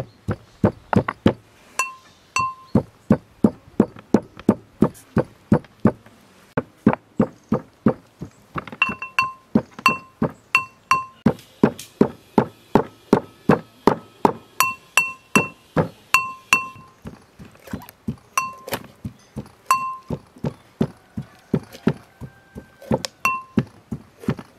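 Brass pestle pounding in a brass mortar, a steady beat of about two to three strokes a second; many strokes ring with a metallic clang.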